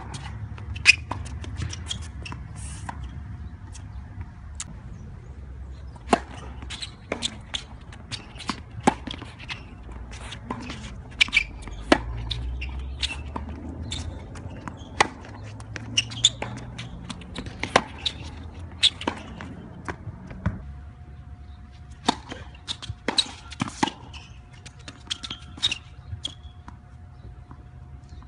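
Tennis rally on a hard court: racket strings striking the ball and the ball bouncing, a string of sharp knocks about a second apart, with a couple of short lulls between points.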